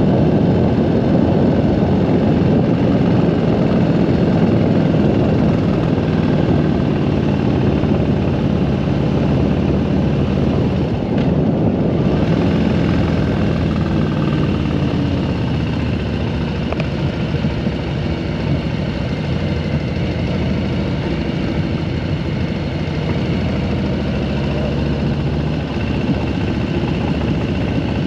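Motorcycle engine running at road speed with wind rushing over the microphone, the engine pitch rising and falling a little as the bike takes the curves.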